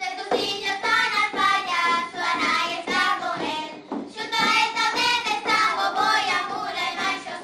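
A small group of young girls singing a song together.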